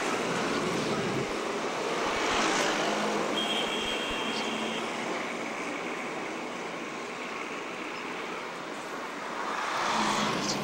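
Road traffic going by: vehicles swell past about two and a half seconds in and again near the end, over a steady outdoor hiss, with a short high tone about three and a half seconds in.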